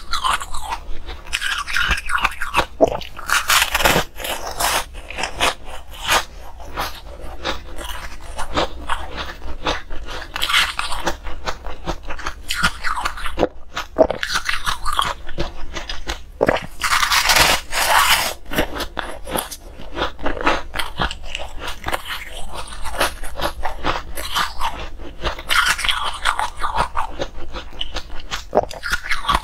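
Ice being bitten and chewed close to the microphone: a dense, irregular run of sharp crunches and crackles as the frozen pieces break between the teeth, with a few longer, louder bursts of crunching.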